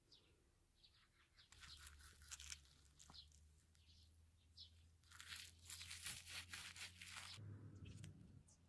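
Faint scratchy rustling and scraping in irregular bursts, busiest about five to seven seconds in, over a low steady hum.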